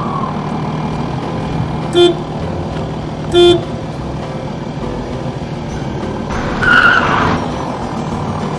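Cartoon truck sound effects: a truck engine running steadily, with two short horn toots about two seconds and three and a half seconds in. A brief higher-pitched tone over a hiss comes at about seven seconds.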